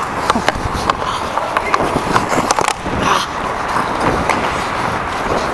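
Hockey skate blades carving and scraping on the ice, with repeated sharp clacks of a hockey stick handling the puck.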